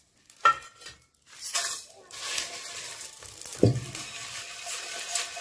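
Whole spices (coriander seeds, cumin, dried red chillies) rattling and scraping in a steel pan as it is handled and stirred to dry-roast, with a sharp metal clink about half a second in. A little past halfway comes a heavy thud, the loudest sound, as the pan is set down on an electric coil hotplate.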